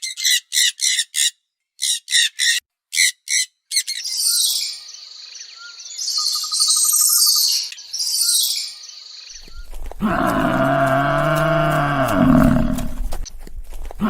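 Animal calls one after another: a quick run of short chirps, then higher warbling bird calls, then from about ten seconds in a long, loud, low call from another animal.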